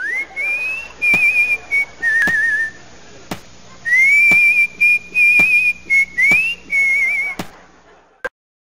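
A person whistling a tune, sliding up into notes and warbling on some of them, over sharp clicks about once a second. It cuts off suddenly near the end.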